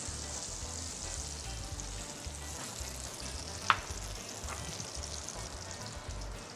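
Butter melting and foaming in a hot frying pan, sizzling steadily. A single brief sharp click sounds about three and a half seconds in.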